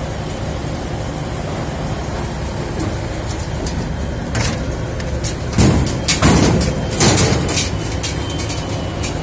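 Steady low engine drone of machinery running, with a run of loud clattering knocks and scrapes from about four and a half to eight seconds in as the welding shelter's door is opened and shut.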